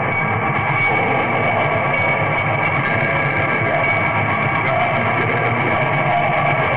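Raw lo-fi black metal: a dense, steady wall of distorted guitar and tremolo bass with live drums, no vocals standing out.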